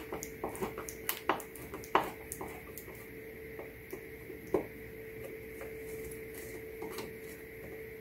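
Screwdriver working the small Phillips screws on a refrigerator's dispenser control board: a run of small clicks and ticks of metal on screw and plastic, thickest in the first two seconds, with a few sharper taps later. A steady faint hum runs underneath.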